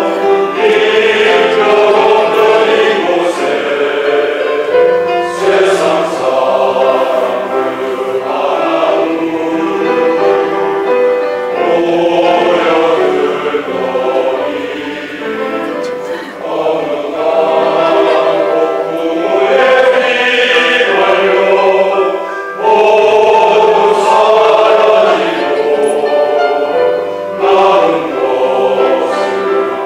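Men's choir singing a song in parts, held phrases rising and falling, with brief lulls between phrases.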